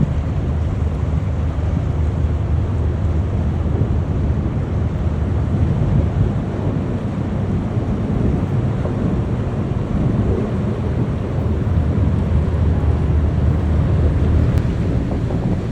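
Steady deep rumble and low hum of a large cargo ship's engine, with wind noise over it.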